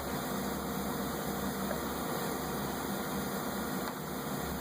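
A steady low hum with an even hiss over it and no distinct events.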